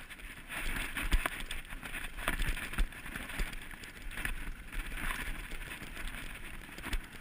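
Mountain bike climbing a dirt and grass track under hard pedalling: a steady rustling hiss of tyres on the ground, broken by irregular clicks and knocks from the bike's drivetrain and frame. The tensioned chain crackles on sand and grit under the heavy pedalling.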